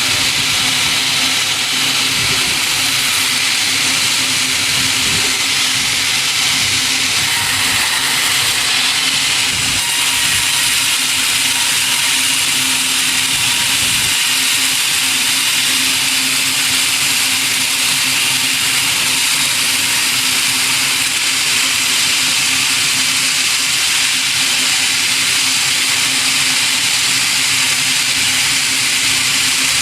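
Sawmill saw and machinery running steadily and loudly: a constant hum under an even hiss, with no pauses.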